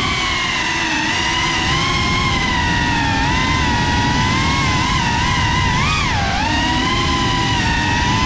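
GEPRC Cinelog35 cinewhoop quadcopter's brushless motors and ducted propellers whining, the pitch wavering up and down with throttle and dipping sharply about six seconds in, over rushing low prop-wash and wind noise.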